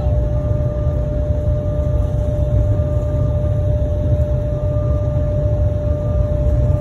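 Cabin noise of an airliner taxiing on the ground: a steady low rumble from the engines and the rolling gear, with a steady whine running through it.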